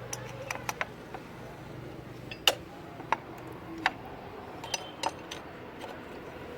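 Metal tools and motorcycle parts clinking and tapping against each other during assembly of the chain sprocket and its cover: about ten irregular sharp clinks, some with a short metallic ring, the loudest about two and a half seconds in.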